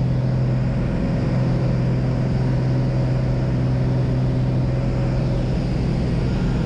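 Single-engine light aircraft's piston engine and propeller running at a steady high power, a constant drone heard from inside the cabin as the plane runs over a grass airstrip.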